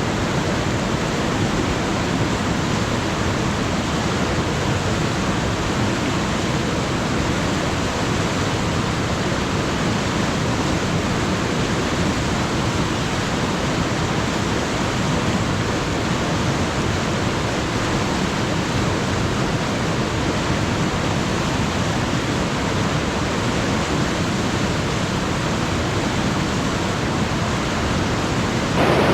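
Alpine river flowing: a steady, even rush of water over stones.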